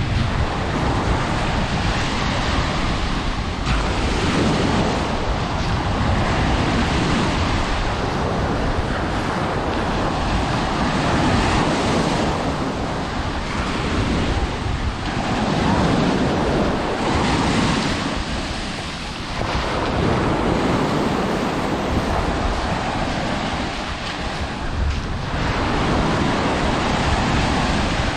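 Surf breaking on a sandy sea beach, rising and falling in swells every few seconds, with wind buffeting the microphone.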